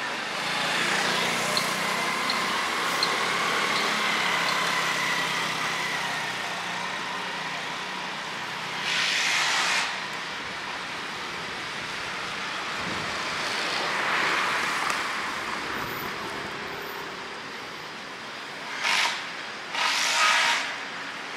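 Road traffic passing close by on a city street. A steady tone runs through the first several seconds, and short, loud hissing bursts come about nine and fourteen seconds in and twice near the end.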